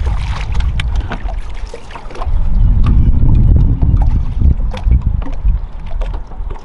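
Wind buffeting the microphone in uneven low gusts, loudest about three seconds in, with scattered light clicks and taps.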